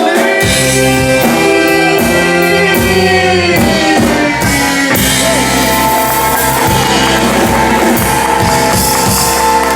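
Live rock-and-roll band playing without vocals, with electric guitar, bass and drum kit holding long sustained chords.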